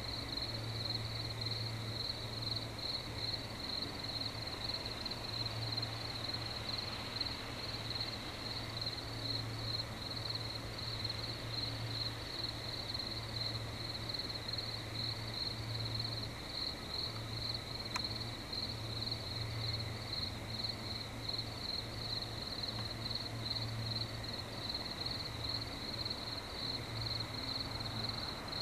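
Night insects chirring in a steady, rapid, high-pitched pulse, with a low hum that swells and drops away every few seconds.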